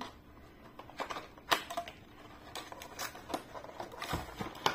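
Plastic-wrapped eyeshadow palette packaging being handled and unwrapped: scattered crinkles, light clicks and taps, with a sharper click about a second and a half in and another near the end.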